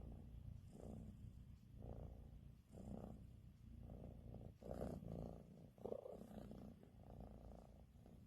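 Domestic cat purring softly, a low rumble that swells and eases about once a second with its breathing.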